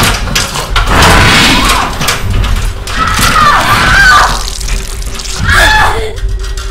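Loud, chaotic attack sound effects: shrill gliding shrieks over crashing, thrashing noise. It cuts off sharply about six seconds in, leaving a low steady hum.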